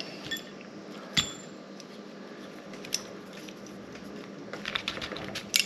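Small steel parts of a VZ61 Scorpion's selector switch and receiver clicking and tapping as the switch is worked into place by hand. The switch is catching on something and not seating. There is a sharp metallic click with a brief ring about a second in, another near three seconds, and a quick run of clicks near the end.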